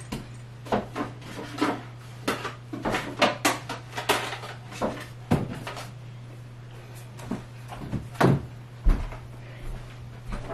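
Irregular knocks and clatters as shoes and white plastic shoe organizers are handled and set down on wooden closet shelves, busiest in the first half and thinning out near the end.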